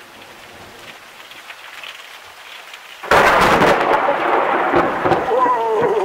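Steady rain, then a sudden loud thunderclap about three seconds in, after which the storm noise of rain and rumbling stays loud. A wavering tone comes in near the end.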